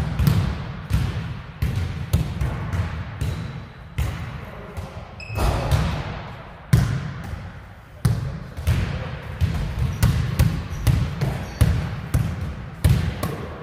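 Basketball being dribbled on a hard floor, bouncing steadily at about one to two bounces a second, each bounce followed by a short echo.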